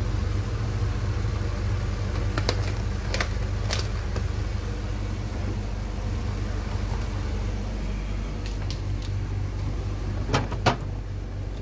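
Sharp clicks of a snap-on lid being pressed onto a plastic takeaway-style food container, over a steady low machine hum. A couple of louder knocks come near the end as the container goes into the fridge.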